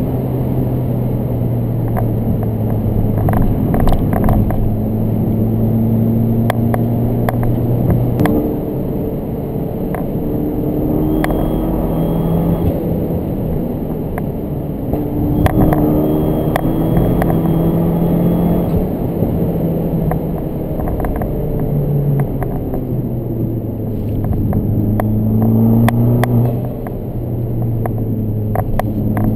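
Fiat 500 Abarth's 1.4-litre turbocharged four-cylinder engine heard from inside the cabin as the car is driven. The revs climb and fall again and again, over tyre and road noise with occasional short knocks.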